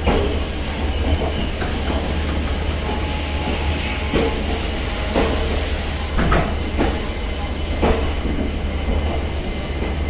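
Passenger coaches of a departing express rolling slowly past, a steady low rumble with wheels knocking over rail joints every second or so.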